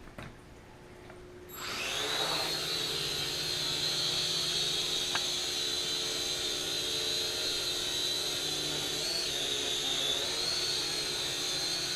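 Syma X5C-1 quadcopter's four small motors and propellers spinning up about a second and a half in, then running with a steady high whine that wavers in pitch twice near the end.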